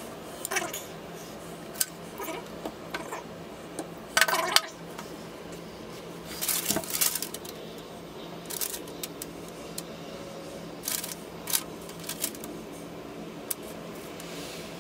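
Loose door-lock hardware being handled: irregular small metallic clinks and clicks, with a few short rustles.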